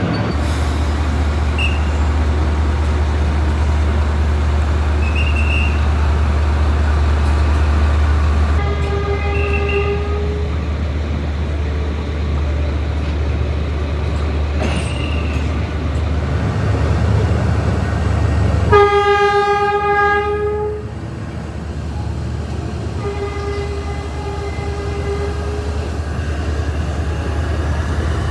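Diesel locomotive running with a steady low rumble and sounding its horn three times: a blast of about a second and a half, a louder blast about ten seconds later, then a longer, fainter one a few seconds after that, as the train departs.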